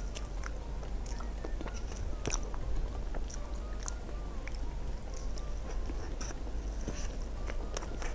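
Close-miked chewing and mouth sounds of a person eating soft dessert, with small irregular wet clicks.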